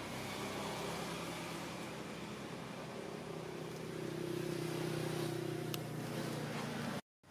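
An engine running steadily with a low hum, a little louder in the second half, cutting off suddenly near the end.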